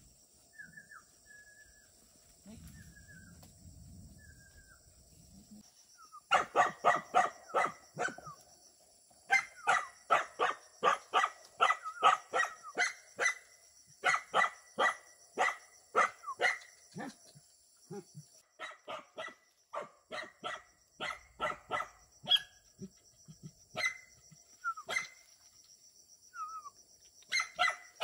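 A dog barking over and over in quick runs of several sharp barks, about two to three a second, beginning about six seconds in after a few faint short whines.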